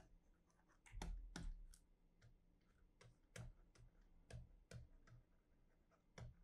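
Faint, irregular clicks of a computer mouse and keyboard, a dozen or so spread through six seconds against near silence.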